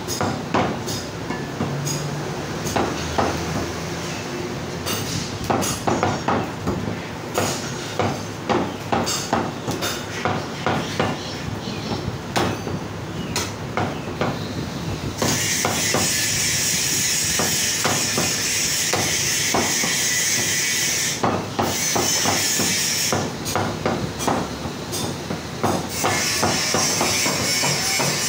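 Meat cleavers chopping mutton on wooden log chopping blocks: many quick, irregular strikes, overlapping from more than one block. Partway through, a loud steady hiss starts over the chopping for several seconds, stops briefly, then comes back near the end.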